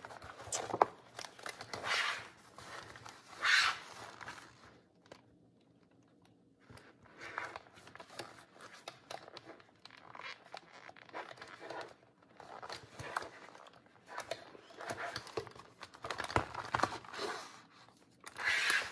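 Paper pages and a card cover rustling and scraping in irregular swishes as a hand-sewn junk journal is turned and handled during stitching, with a quiet pause partway through.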